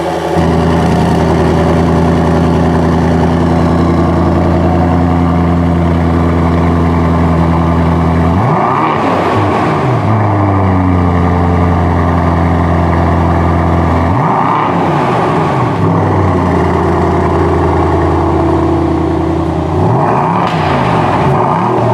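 AMG S63's 4.0-litre twin-turbo V8 running through its AMG sports exhaust, held at steady revs, with shifts in engine speed about 8, 14 and 20 seconds in.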